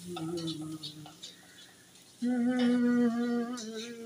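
A voice making low wordless sounds, then, about two seconds in, holding one long steady note, hummed or sung.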